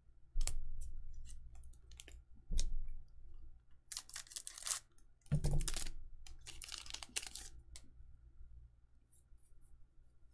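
Trading cards being handled on a table in a booster-pack opening: a few soft thumps and clicks as cards are slid and set down, and two short stretches of papery rustling, about four and seven seconds in.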